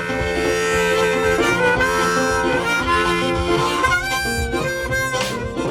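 Background music with a harmonica melody.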